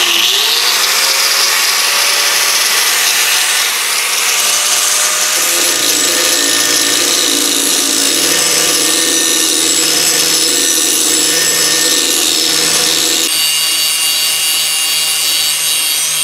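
Bosch angle grinder with an 80-grit disc grinding rust pitting off a steel Plumb axe head. The motor's whine rises as it spins up right at the start, then runs steadily against the metal, its tone shifting about 13 seconds in.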